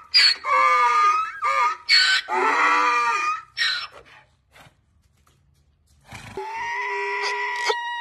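Donkey braying: several loud, wavering calls in the first half, then a pause. A steady, unwavering tone starts about six seconds in.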